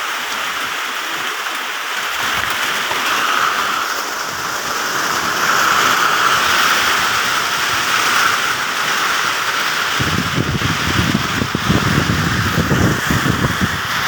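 Steady rain falling on plant leaves, a dense even hiss. About ten seconds in, a few seconds of heavier, closer drop patter join it, then ease off near the end.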